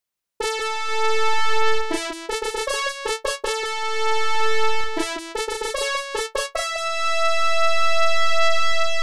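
An LG T5100 mobile phone ringtone played back in MidRadio: a short synthesized melody in an electric-piano-like tone. It starts about half a second in, repeats its opening phrase twice, and closes on a long held note.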